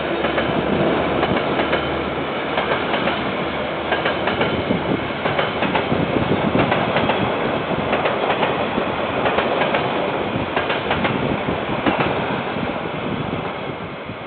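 Diesel-hauled freight train of container wagons rolling past, with wheels clacking over the rail joints. A low steady engine note fades in the first couple of seconds as the locomotive moves away, and the noise drops near the end as the last wagons go by.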